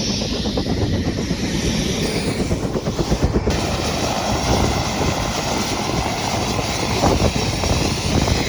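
Helicopter running close by, its rotor beating fast and steady over the engine's whine.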